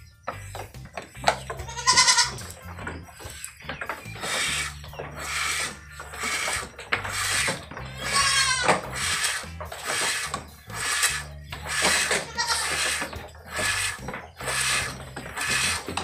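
Hand milking of an Anglo-Nubian goat: milk squirts hiss into a cloth-covered bucket in a steady rhythm of about one and a half strokes a second. Goats bleat twice, about two seconds in and about halfway through.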